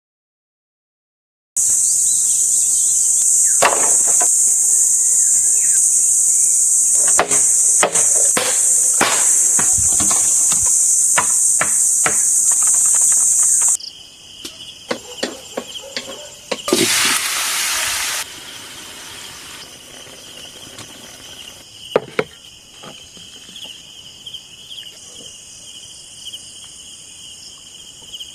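A loud, steady, high-pitched insect drone starts after a second and a half of silence and cuts off suddenly about fourteen seconds in, scattered with sharp knocks and taps. After that a softer steady insect trill carries on, with a brief rush of noise near the middle and a few more knocks.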